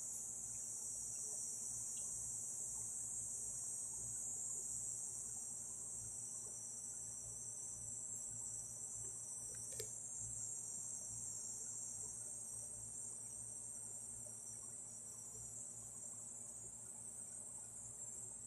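A steady, high-pitched chorus of crickets, with a low hum underneath and one small click near the middle.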